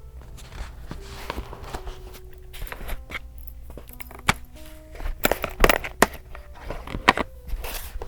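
Soft background music, a slow melody of single held notes, over crisp rustles and taps of paper and stationery being handled, which come thicker and louder in the second half.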